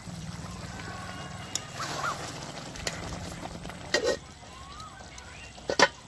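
Thick curry bubbling and plopping as it simmers in a large metal karahi, with a couple of sharp knocks, the loudest just before the end.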